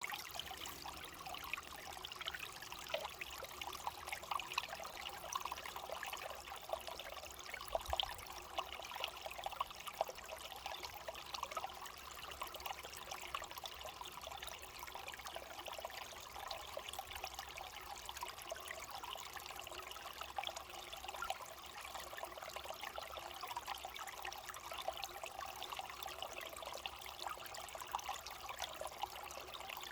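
Flowing water trickling steadily, a continuous stream of many small splashes and gurgles.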